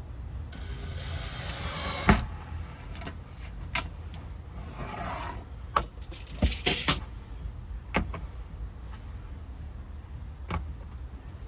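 Scattered knocks and clicks of tools, screws and metal track being handled while setting up a screw test on a piece of E-track, with a noisy stretch near the start, over a steady low hum.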